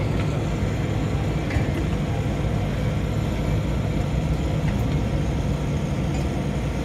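Steady low drone of running machinery, even in level, with a couple of faint light ticks.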